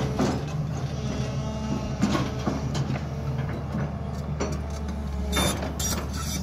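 SANY crawler excavator's diesel engine running steadily, with scattered sharp metallic clanks and knocks from the working machine, the loudest cluster about five and a half seconds in.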